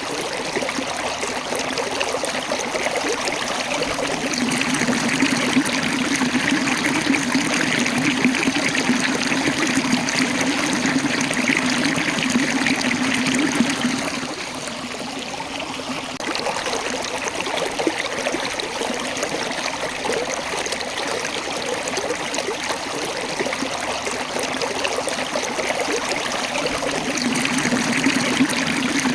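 Waterfall: water rushing and splashing over rocks in a steady, even wash that dips briefly about halfway through.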